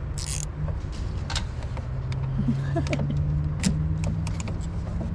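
Hand tools and loose metal parts clicking and clinking in a van's engine bay: several sharp separate clicks over a steady low rumble.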